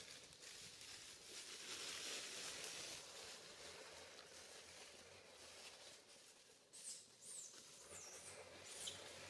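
Faint outdoor quiet with a few short, high squeaks about seven to nine seconds in, typical of a small animal such as an infant monkey.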